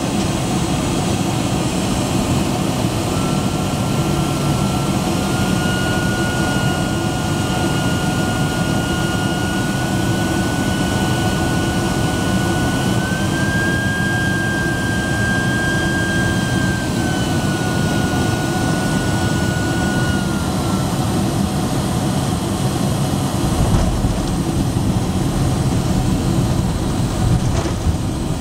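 Boeing 767-300ER cabin noise heard from a window seat over the engine: a steady jet engine and airflow rush, with a high engine whine that steps up and down in pitch as thrust is adjusted on the approach to landing. Near the end a deeper rumble comes in as the aircraft reaches the runway.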